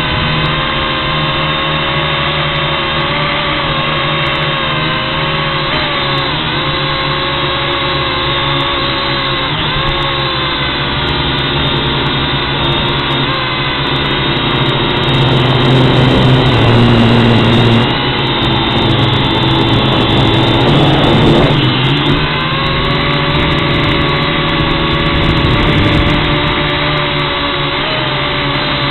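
WLtoys toy quadcopter's small electric motors and propellers whining in flight, heard from on board, with several pitched tones that waver as the throttle changes. It grows louder and rougher for several seconds in the middle, then settles back.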